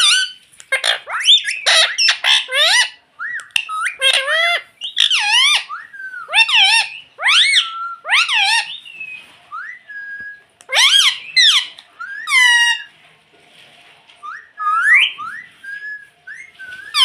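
Pet ringneck parrot giving a run of sharp squawks and whistled calls, with short pauses between bursts.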